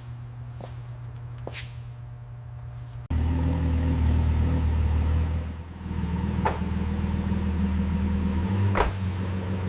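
Car engine running with a steady low drone that becomes suddenly louder about three seconds in, with a few sharp clicks.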